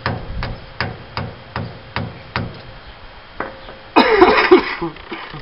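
Hammer striking a screwdriver held against a Dana 60 axle's hub nut to drive the nut round, a makeshift way of tightening it without the proper socket. There are seven sharp metal knocks at about two and a half a second, one more after a pause, then a louder clatter lasting about a second near the end.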